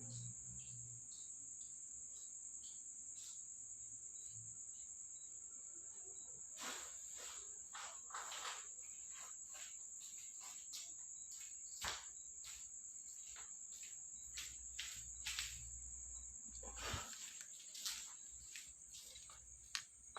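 Crickets trilling steadily in a high, unbroken tone, with scattered faint clicks and knocks.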